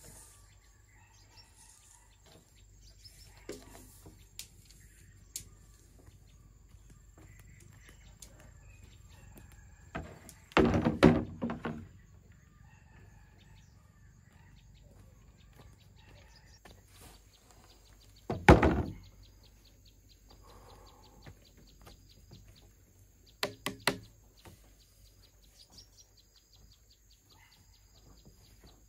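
A few hard knocks with a short ring: a quick run of several strikes about ten seconds in, one loud strike a little later, and two close together near the end, over faint bird chirps.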